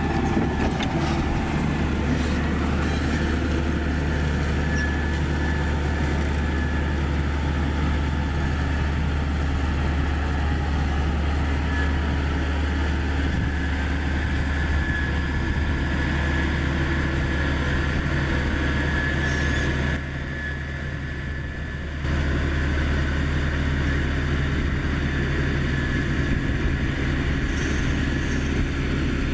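Komatsu GD555 motor grader's diesel engine running steadily while working, a low drone with a thin steady whine above it. The sound drops to a quieter stretch for about two seconds, two-thirds of the way through.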